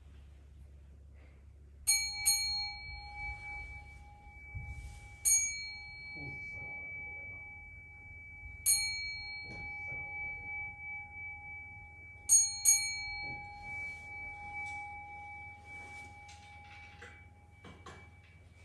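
Buddhist temple bowl bell (kin) struck six times: a pair of strokes, two single strokes, then another pair, each leaving a long, steady ringing tone that carries on under the next. The strokes open the memorial service.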